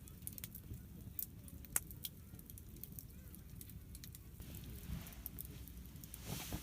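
Wood campfire crackling faintly, with scattered irregular pops over a low background rumble.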